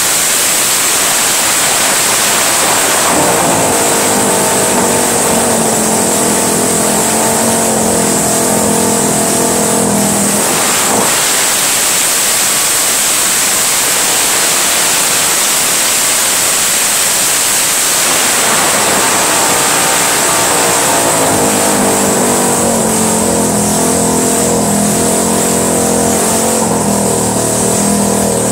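1976 Honda CB360's air-cooled parallel-twin engine running on its first start-up and being revved. The pitch climbs over several seconds, drops back sharply about eleven seconds in, then climbs again near the end.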